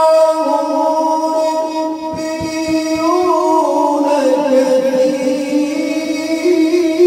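A man reciting the Quran in the melodic mujawwad style through a microphone: one long, drawn-out melismatic line that climbs briefly about three seconds in, sinks lower, then rises again near the end.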